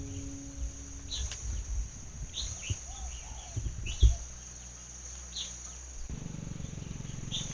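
A bird giving short chirps every second or two over a steady high-pitched drone, with scattered low knocks and one louder thump about four seconds in.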